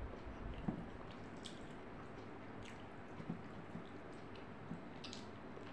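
Fingers mixing and squishing rice with fish curry on a plate: soft wet squelches with a few small scattered clicks.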